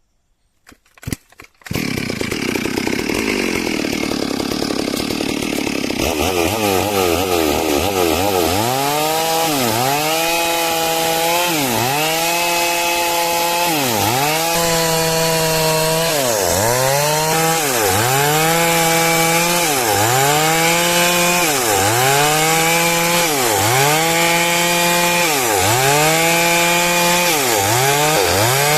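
Stihl MS 382 two-stroke chainsaw starting after a few sharp knocks and then ripping through a log. The engine pitch drops and climbs back about every two seconds as the chain bites into the wood under load.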